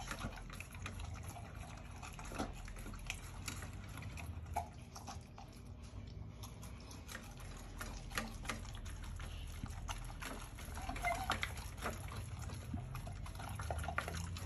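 A pit bull eating raw chicken feet from a stainless steel bowl: wet chewing and smacking with irregular crunches and clicks.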